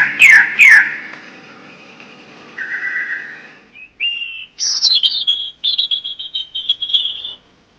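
High, bird-like whistled calls: quick falling whistles for the first second. After a pause come a short held whistle and then a fast run of high chirps that stops near the end.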